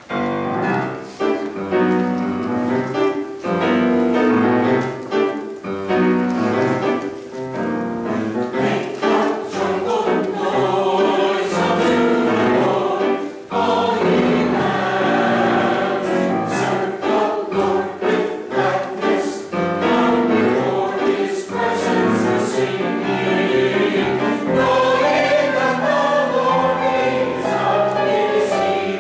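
Church chancel choir of mixed men's and women's voices singing together, with a brief break about 13 seconds in.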